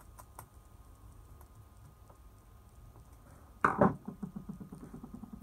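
Faint clicks of a small screwdriver working the screw terminals on a MOSFET board. About two-thirds of the way through comes one sudden knock, followed by a short, quick rattle.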